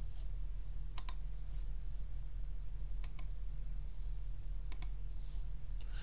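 Clicks from a computer keyboard and mouse being worked at a desk: three pairs of short, sharp clicks about two seconds apart, over a steady low hum.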